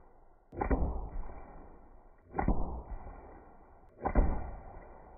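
Three deep, slowed-down hits about a second and a half to two seconds apart, each swelling quickly and fading over about a second. These are pellets from a .30 calibre PCP air pistol striking water-filled plastic jugs, heard in slow motion.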